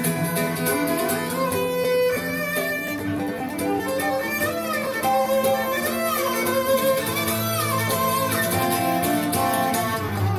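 Recorded string music, a fiddle playing sliding, wavering lines over guitar, played back through hi-fi loudspeakers in a demo room.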